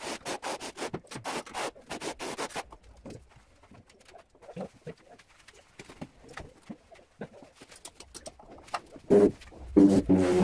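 A steel trowel scrapes and taps through tile adhesive in quick strokes, followed by softer handling knocks. Near the end come loud, short humming pulses as a handheld tile vibrator is pressed onto the porcelain slab to bed it.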